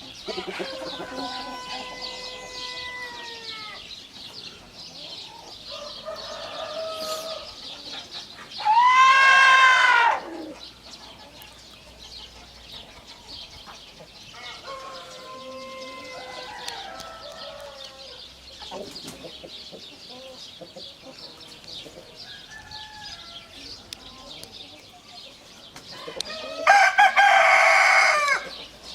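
Roosters crowing one after another, some faint and distant, some close; the two loudest crows come about nine seconds in and near the end. A steady high-pitched chirring runs underneath.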